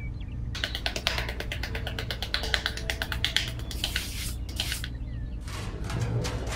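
A small hand trowel digging and scraping in sand, a rapid run of ticks and scrapes that stops about five seconds in, over quiet background music.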